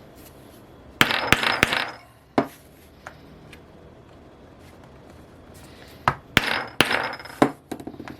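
An oblong leather punch being struck through saddle leather into a scrap backing piece. Two quick runs of sharp knocks, about a second in and about six seconds in, each of several blows.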